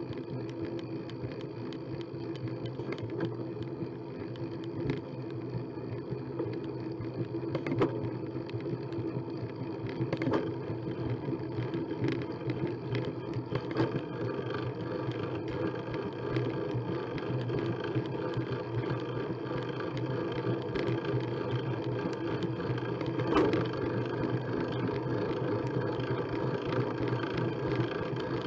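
Bicycle ridden hard on a concrete path: a steady rush of tyre, wind and frame noise that grows a little louder as the speed builds, with sharp knocks now and then as the wheels cross pavement cracks and joints.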